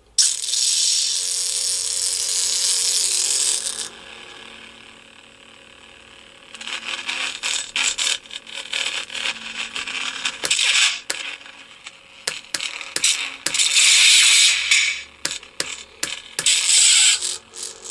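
Lightsaber sound effects from a saber sound board, played through a small bare speaker: a hissing burst for about four seconds, a quieter stretch, then a run of crackling clicks and hissing bursts, the loudest near the end. The unmounted speaker is one that sounds right only when firmly planted down on a surface.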